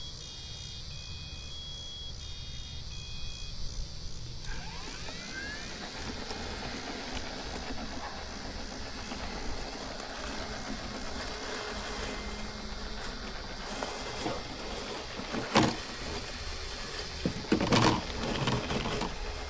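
Short repeated electronic beeps in pairs of tones for the first four or so seconds. Then a Mammotion Yuka robotic lawnmower runs steadily, cutting long, thick grass, with a few sharp knocks near the end.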